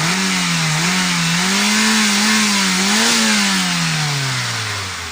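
Toyota Avanza's K3 four-cylinder engine being revved and held up, its pitch rising and dipping with the throttle, then falling back toward idle over the last two seconds. It runs without the noise it had before the cylinder head was refitted: okay, no more noise.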